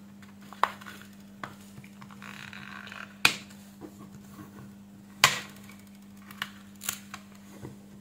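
Back cover of an Infinix smartphone being prised off by fingernails: a string of sharp clicks as its clips snap free, the two loudest about three and five seconds in, with a brief scraping rustle just before the first of them.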